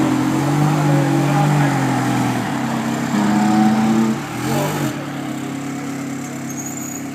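Ferrari 360 Challenge Stradale's 3.6-litre V8 being revved: it holds raised revs for about two seconds, drops, rises again, gives a quick blip up and down about four and a half seconds in, then settles to a steady idle.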